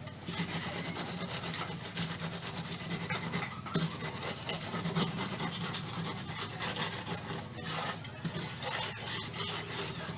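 Hand scraping and rubbing of a tool over the cement top of a concrete sink counter, a rapid run of short rasping strokes as the surface is worked smooth.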